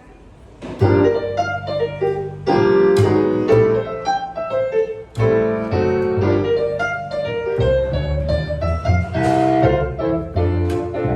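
Music led by piano, entering softly and becoming full about a second in, with chords and melody notes struck in a steady flow.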